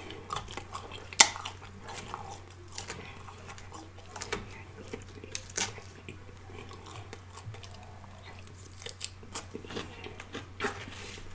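Close-up chewing of crisp green salad with lettuce and cucumber, with wet crunching and small mouth clicks scattered throughout. One sharper click comes about a second in.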